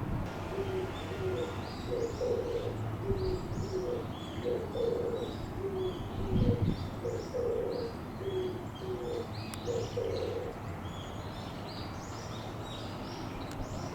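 Oriental turtle dove cooing its rhythmic song, a phrase of low coos repeated over and over, which stops about ten and a half seconds in. Higher chirps from small birds run throughout, and there is a single low thump about six seconds in.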